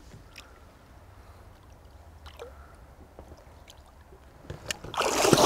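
Faint water sounds against the boat, then, about five seconds in, loud splashing at the boat's side as the hooked smooth-hound shark thrashes at the surface while it is being grabbed.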